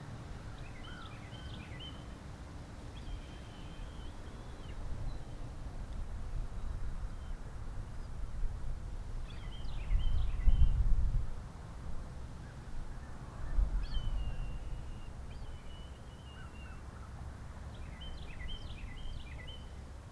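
Backyard songbirds calling: three quick clusters of short, high chirps and two longer held notes that fall slightly. Under them runs a steady low rumble, which swells loudest about halfway through.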